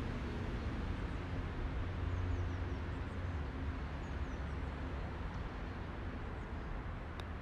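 Steady low rumble of distant traffic, with small bird chirps now and then. Near the end comes one light click of a putter striking a golf ball.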